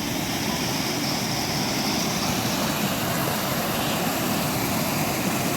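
Steady loud rush of fast-flowing mountain water, an even roar of a stream and waterfall, with no breaks or separate events.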